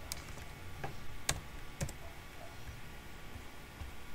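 A few sharp clicks of keys being struck on a computer keyboard, about four in the first two seconds, then only a faint low hum.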